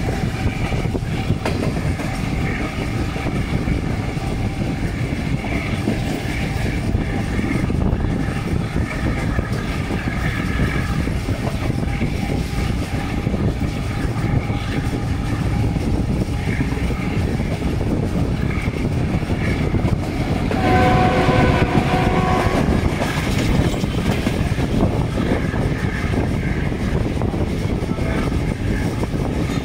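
Passenger train running at high speed, heard from a coach window: steady rumble and clatter of wheels on the rails with wind. The locomotive's multi-tone air horn sounds once for about two seconds, a little over two-thirds of the way through.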